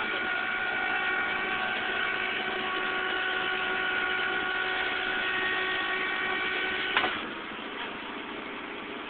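Tow truck's loading machinery running with a steady whine of several constant tones as the car is drawn up. It cuts off with a sharp clunk about seven seconds in, leaving a quieter engine hum.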